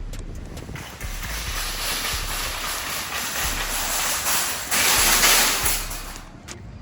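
Shopping cart being pushed, its wheels rolling over the store floor with a rattling hiss that grows loudest about five seconds in, then fades.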